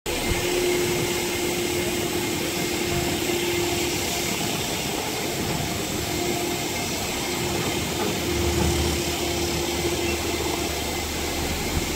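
Steady machine noise of running engines, a low rumble joining about eight seconds in.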